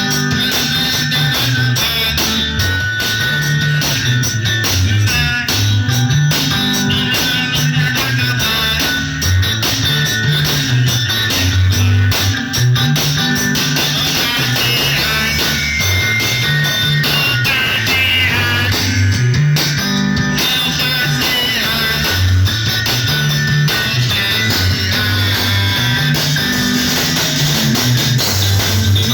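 A live band rehearsing: guitars playing over a bass line that repeats every couple of seconds.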